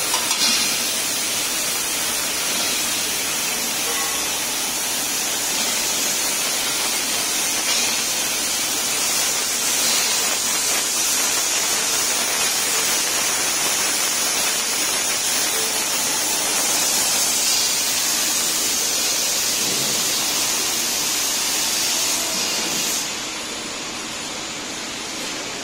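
Laser cutting machine running, with a steady loud hiss of gas and air that drops off about three seconds before the end.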